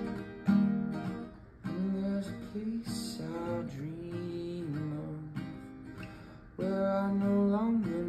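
Acoustic guitar strummed in slow chords while a man sings a gentle melody over it.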